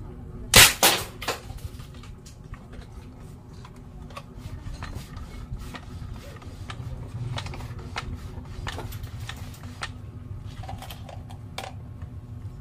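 Homemade PVC toy gun firing once with a sharp bang about half a second in, trailed by two quieter cracks. Scattered light clicks and handling knocks follow.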